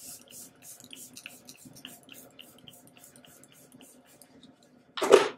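Makeup face-mist spray bottle pumped at the face again and again: a rapid series of short hissing spritzes, several a second. Near the end comes one short, loud burst of noise.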